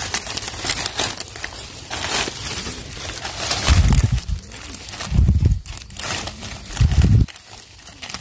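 Dry fallen leaves and twigs rustling and crackling as a hand rummages through the leaf litter, with three dull low thumps in the second half.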